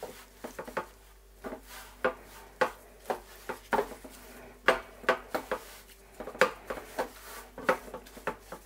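Dry rub being worked by a gloved hand into a whole pork neck in a stainless steel tray: irregular knocks and clatters of the meat and hand pressing and shifting against the metal tray. The meat is lifted and turned over about halfway through.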